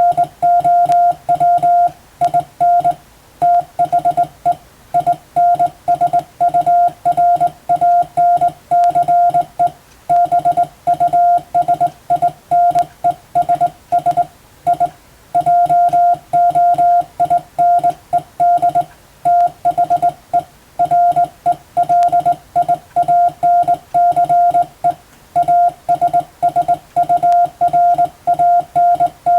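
Morse code sent as a keyed beep on one steady pitch: a rapid run of short dots and longer dashes, with brief pauses between words every few seconds.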